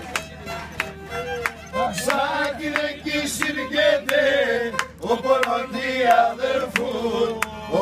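A group of men singing a Pontic Greek folk song together, with sharp beats keeping time about twice a second.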